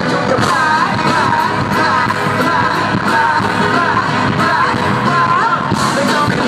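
Live hip-hop performance recorded from the crowd: vocals over loud, amplified band music.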